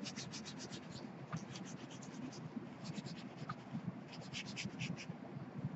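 Folded paper towel rubbed quickly back and forth over charcoal on drawing paper to blend it. It makes a fast scrubbing swish, about six strokes a second, in short runs with brief pauses.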